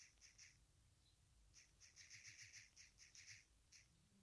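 Faint quick taps of typing on a smartphone's on-screen keyboard: three taps, a pause of about a second, then a fast run of a dozen or so.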